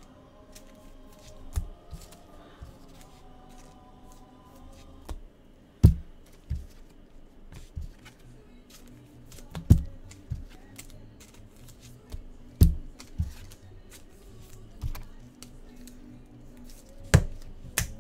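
Trading cards being handled and set down on a table: light clicks and rustling, with a sharper knock every few seconds, over quiet background music.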